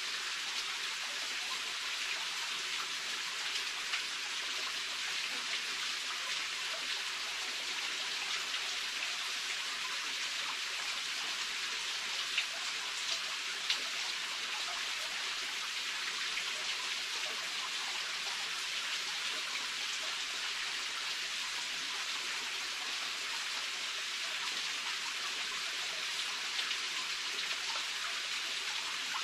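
Steady water sound: an even hiss that does not change, with a couple of small sharp clicks near the middle.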